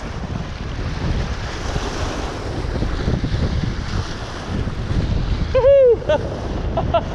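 Wind buffeting the microphone over fast-flowing canal water splashing against a rocky bank, a steady rushing noise. About five and a half seconds in, a short, loud shout that falls in pitch.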